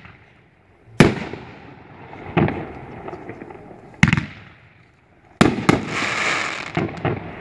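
A 500-gram Boomin' Bulldog 'Variety Baby' firework cake firing 3-inch shots. Sharp shell bursts go off about a second in and at four seconds, with a fainter thump between them, then two bangs in quick succession about five and a half seconds in, followed by a fizzing crackle as the stars burn.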